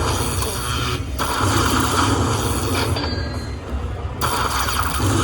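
Lightning Link Magic Pearl slot machine running its bonus spins: a noisy rushing sound that comes in stretches, with short breaks about a second in and again past the middle.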